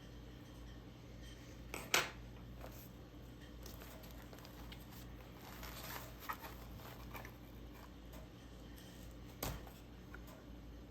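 Glittery slime being handled: quiet sticky, crackly squishing with a few sharp clicks and pops, the loudest about two seconds in and another near the end, over a low steady hum.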